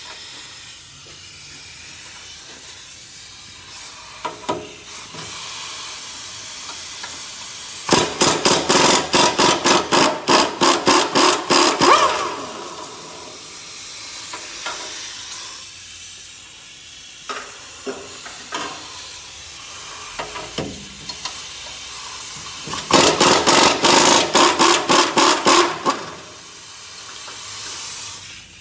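Impact wrench run in two bursts of about four and three seconds, the first about eight seconds in and the second near the end, its hammering pulsing several times a second as it spins out the front crossmember bolts. A steady hiss and a few light knocks lie between the bursts.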